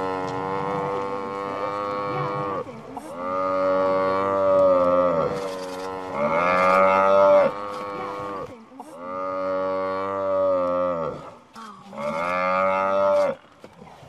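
African buffalo bellowing in distress while held by a lion: a run of five long, drawn-out bawls, each about two seconds, with short gaps between them.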